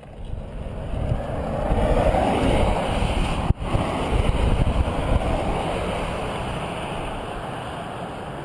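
Wind rushing over the microphone of a camera riding on a moving bicycle, a loud, even low rumble that cuts out for an instant about three and a half seconds in.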